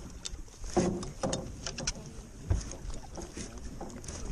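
Fishing boat at sea: a low steady rumble with water and wind noise, broken by a few short, faint sounds about a second in.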